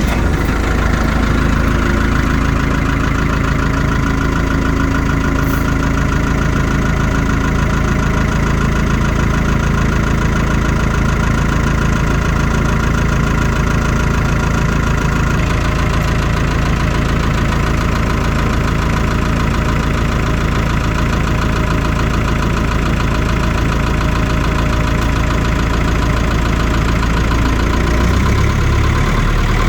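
45 kW diesel generator engine running steadily just after starting up. Its low note shifts slightly near the end.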